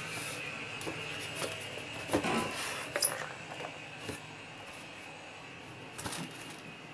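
Handling noise from a plastic toy stunt car being lifted out of its polystyrene foam packaging: scattered plastic clicks and rubbing, busiest about two to three seconds in, with another knock near six seconds.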